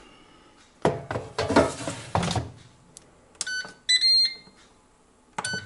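A food drawer clattering as it is pushed into a Ninja dual-drawer air fryer. About three and a half seconds in, the air fryer's control panel gives a short beep and then a longer one as it is set.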